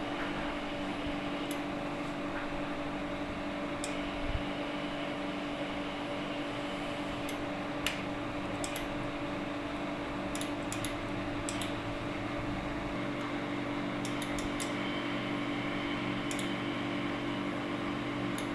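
Steady electrical hum of a TV panel repair machine at the bench, with a dozen or so short sharp clicks scattered through it.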